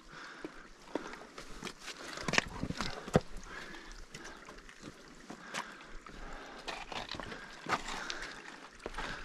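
Hiking boots stepping and scuffing on granite rock and loose gravel, in irregular crunches and scrapes. There are a couple of sharper knocks between about two and three seconds in.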